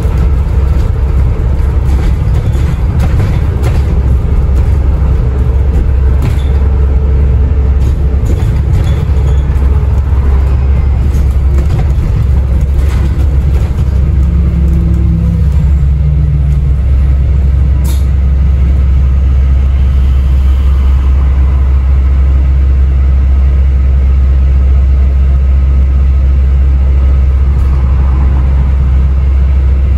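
Cabin sound of an Alexander Dennis Enviro400 MMC (E40D) diesel double-decker bus on the move: a steady, loud low rumble of engine and road, with the engine note shifting about halfway through and a few faint clicks and rattles.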